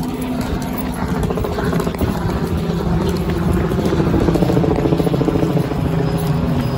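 Police helicopter overhead: rapid beating of the rotor blades over a steady hum, growing louder about four seconds in.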